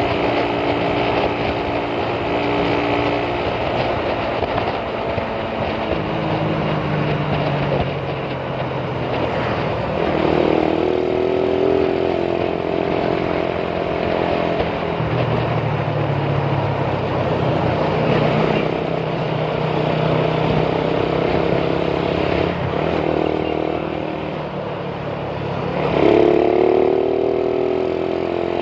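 Motorcycle engine running under way, heard from the rider's seat over a steady rush of wind. The engine pitch climbs as it accelerates, about ten seconds in and again near the end.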